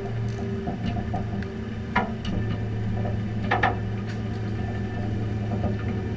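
Tow truck engine idling steadily, with a sharp clank about two seconds in and two more close together about three and a half seconds in.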